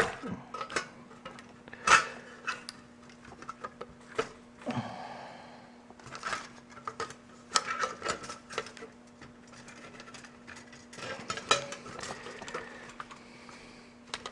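Irregular metallic clicks, knocks and clatter of a toaster's sheet-metal casing and parts being handled and pried apart during disassembly, with the sharpest knocks at the start and about two seconds in, over a faint steady hum.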